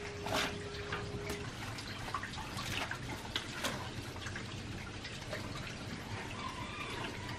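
Cooked manzanilla fruit being handled into a woven plastic bag inside a copper pot: scattered soft taps and clicks, with a faint steady hum in the first second and a half.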